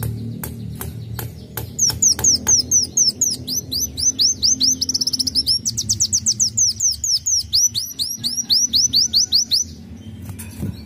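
Sunbird singing: a fast run of high, sharp sweeping notes, several a second, that goes on for about eight seconds and stops near the end. It opens with a few sharp clicks.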